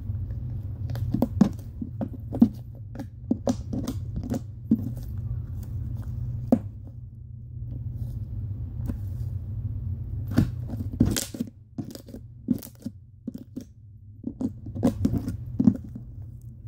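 Hands kneading and stretching wet slime, giving irregular sticky pops and squelches as air bubbles in it burst, over a steady low hum.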